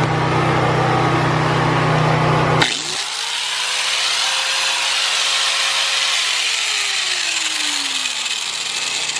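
A loud low hum cuts off abruptly a few seconds in. Then a corded angle grinder, run off a generator to test the trailer's new outlets, whines up to speed, runs steadily for about three seconds, and winds down with a slowly falling whine once it is switched off.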